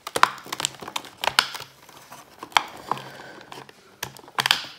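Cardboard crackling and tearing as a finger pushes open the perforated door of a cardboard dog-treat advent calendar: an irregular run of crinkles and clicks, loudest near the end.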